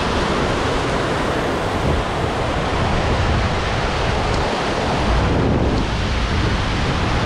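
Steady, loud rush of storm-swollen flowing water, with wind buffeting the microphone.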